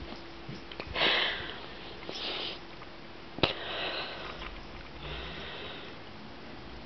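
Four breathy sniffs close to the microphone, the loudest about a second in, with one sharp click about halfway through.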